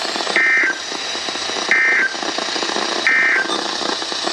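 NOAA Weather Radio SAME end-of-message code: three short, harsh two-tone data bursts about a second apart, over steady radio static hiss. This marks the end of the flash flood warning broadcast.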